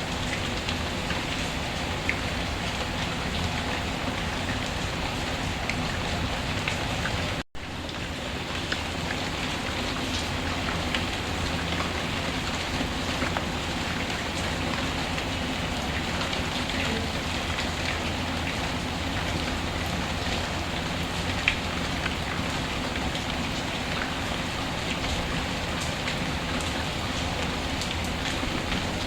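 Steady rain hiss mixed with a wood fire crackling, with scattered small pops and snaps and one sharper pop about twenty-one seconds in. The sound cuts out for an instant about seven and a half seconds in.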